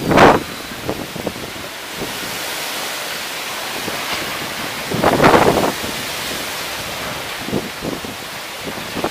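Strong wind blowing and buffeting the microphone: a steady rush, with hard gusts right at the start and again about five seconds in.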